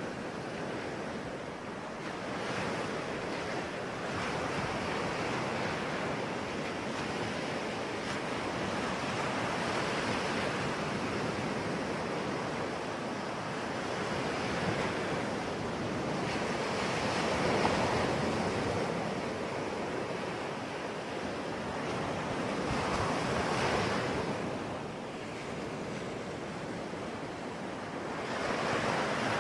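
Sea waves breaking and washing on a shore, a continuous surf with slow swells, the biggest about halfway through and again near the end.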